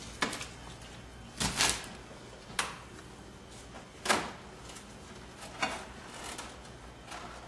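Refrigerator door and the containers inside it being handled: a string of separate clunks and knocks, each a second or so apart, the sharpest about four seconds in.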